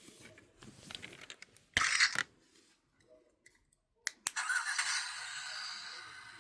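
Tobot C transforming toy being handled, with plastic clicks and rattles. There is a short loud burst of hiss about two seconds in, then a sharp click and a longer hissing sound that starts about four seconds in and slowly fades.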